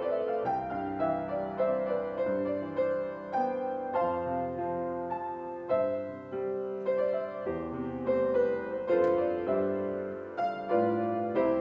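Grand piano played solo: a flowing piece of chords and melody notes, each left ringing into the next.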